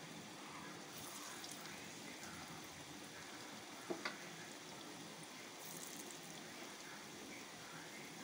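Gram-flour-battered palm fruit pieces deep-frying in oil in a small pan over a medium flame: a quiet, steady sizzle and bubbling. About four seconds in, a couple of short sharp clicks.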